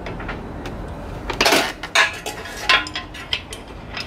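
Steel combination wrench clinking against the 17 mm oil drain plug bolt and engine case of a 2018 Honda Grom as the bolt is worked loose: a series of sharp metallic clinks, the loudest about a second and a half in.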